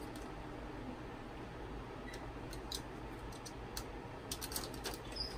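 Faint scattered ticks and crinkles of thin FEP plastic film being cut around its edge, with more of them near the end.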